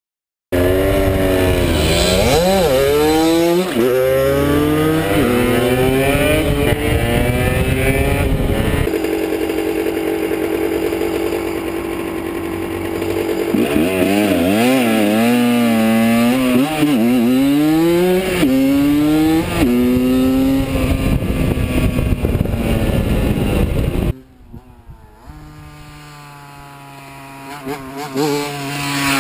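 125 cc single-cylinder two-stroke motorcycle engine being ridden hard. It revs up again and again, with the pitch climbing and dropping at each gear change, then holds steady revs for a few seconds. About three-quarters of the way through it cuts off suddenly to a much quieter, steady engine sound that swells up again near the end.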